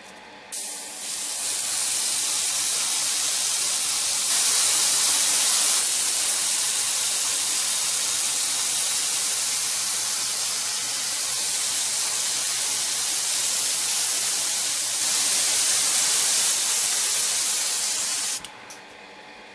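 Airbrush spraying primer: a continuous high hiss of air and atomised paint. It starts about half a second in and cuts off shortly before the end.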